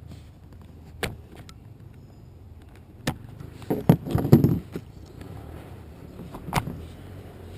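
Toy packaging and parts being handled: a few sharp clicks and a louder burst of clattering and rustling about four seconds in.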